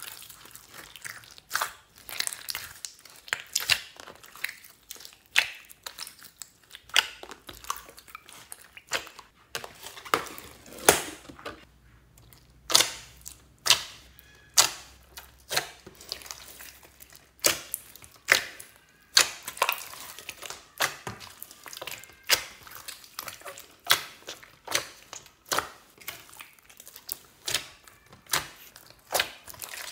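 Hands squeezing and kneading a large mass of mixed slime with foam beads in it. It makes wet squelches and sharp pops and crackles of trapped air, irregular, about one or two a second.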